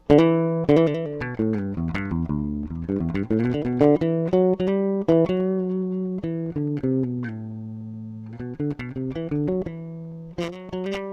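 Ibanez SR Mezzo 200 active four-string electric bass played clean, both pickups on with the treble at 50%. A run of plucked notes steps down in pitch, then climbs back up, with a longer held low note a little past the middle.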